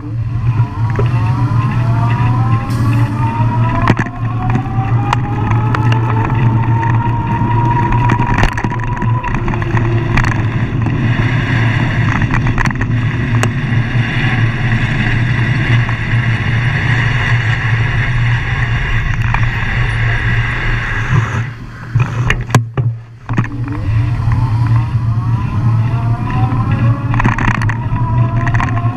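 Vehicle driving on a wet road: a steady low engine drone with tyre noise, and a whine that rises in pitch as the vehicle speeds up, once early on and again near the end after a brief lull.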